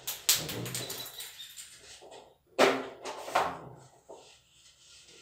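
A handheld eraser wiping a whiteboard in a run of quick rubbing strokes, with two louder swipes about two and a half and three and a half seconds in.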